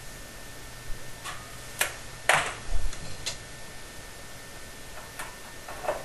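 A few sharp clicks and taps from a steel tape measure being handled against thin sheet-metal flue pipe. A little over two seconds in there is a short scrape, followed by a dull thump.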